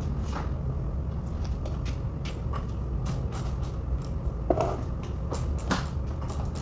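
Steady low workshop rumble with scattered light clicks and two louder knocks, about four and a half and six seconds in, from hand work on the front corner panel of a bus.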